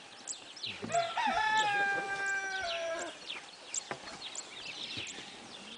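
A rooster crows once, a single call of about two seconds starting about a second in, pitch rising, then held, then dropping at the end. Small birds chirp in the background.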